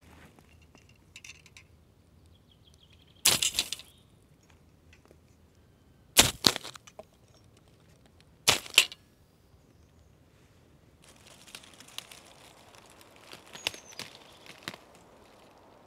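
Folding pruning saws tossed one after another onto mossy ground: three short, sharp clatters, about three and two seconds apart. From about eleven seconds in, soft rustling and small snaps in dry leaf litter follow, with a brief bird chirp.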